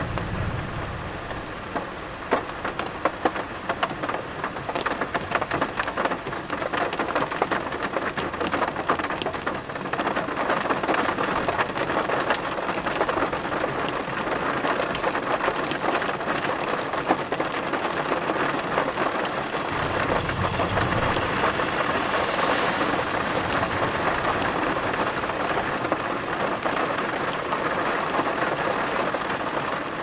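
Heavy thunderstorm rain falling steadily, with many sharp close drop hits. Low thunder rumbles at the start and again about twenty seconds in.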